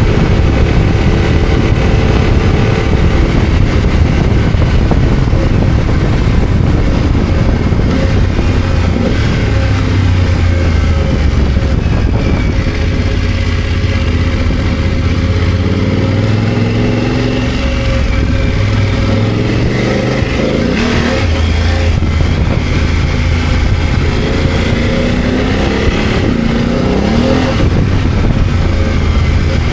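BMW F 900 GS motorcycle's parallel-twin engine running under way off-road, its revs rising and falling with the throttle, over a steady rushing noise.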